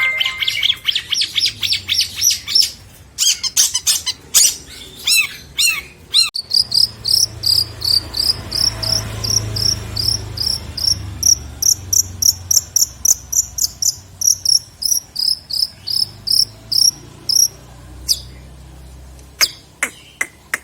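Long-tailed shrike (cendet) singing: fast runs of repeated high chirps, about four or five a second, switching phrase a few times, then thinning to a few sharp single notes near the end.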